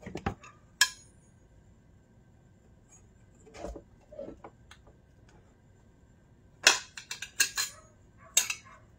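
Kitchen utensils and a plate clinking and knocking in short, scattered clatters: a sharp click under a second in, a few soft knocks around four seconds, and a louder run of clinks near the end.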